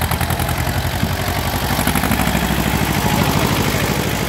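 Diesel engine of a small vintage farm tractor running at low revs with a rapid, even beat as it pulls a loaded trailer past close by.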